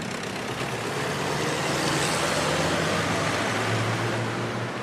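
Road traffic: a motor vehicle passing close, its engine and tyre noise swelling to a peak about halfway through and then fading.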